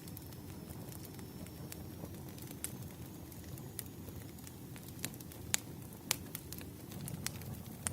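Firewood burning: a steady low rumble of flames with irregular sharp crackles and pops, two louder snaps a little past the middle.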